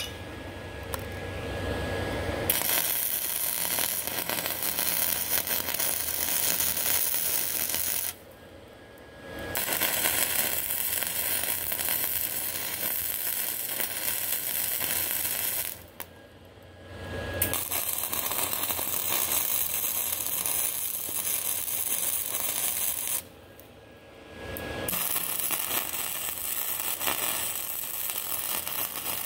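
Lincoln wire-feed welder's arc crackling steadily as it lays weld on a cracked cast iron engine block's water jacket. The arc strikes about two and a half seconds in and runs in four stretches, stopping briefly three times between them.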